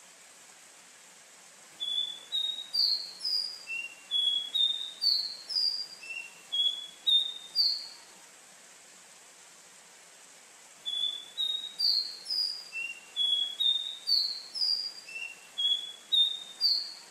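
Caboclinho, a Sporophila seedeater, singing two phrases of about six seconds each, with a pause of about three seconds between them. Each phrase is a quick string of short, clear notes that climb in pitch in small runs of three or four, then drop and climb again.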